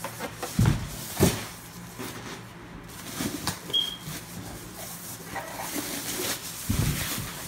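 Foam wrap and a thin plastic bag rustling and crinkling as a heavy subwoofer is handled and turned over, with a few dull thumps as it shifts on the table.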